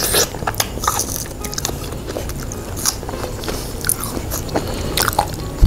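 Two people biting into and chewing fresh strawberries dusted with powdered sugar, heard as many short clicking mouth sounds.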